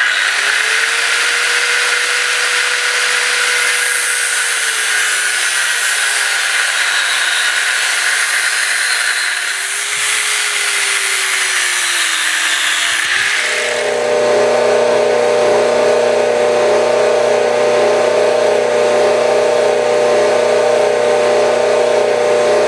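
Angle grinder with a cutoff wheel cutting a steel bar, a loud hiss over a motor whine that sags in pitch as the wheel bites, twice. About 13 seconds in, this gives way to the steady hum of a 25-ton forging press running.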